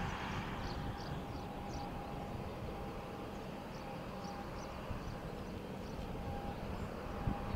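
Steady distant jet airliner engine noise: a low rumble with a thin constant whine. Faint high chirps repeat a few times a second over it.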